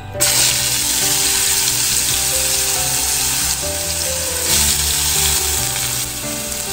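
Crushed shallots frying in hot ghee and oil in a metal pot. The sizzle starts suddenly just after the start, as the onions hit the fat, and then keeps on steadily.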